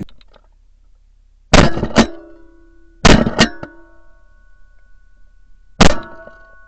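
Music made of sharp struck or plucked hits: two quick pairs about a second and a half apart, then a single hit near the end, each leaving a ringing tone.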